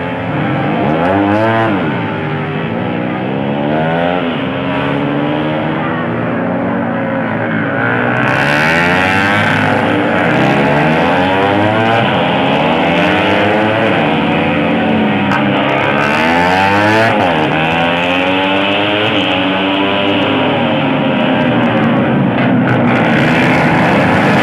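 Racing motorcycle engines revving hard as bikes race past, their pitch climbing and dropping again and again as they shift and pass.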